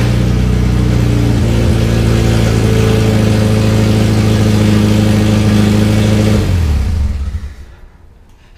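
1986 Mazda B2000's four-cylinder engine running steadily through a header and straight pipe with no muffler, loud and somewhat tractor-like. About six and a half seconds in it is switched off and dies away over a second.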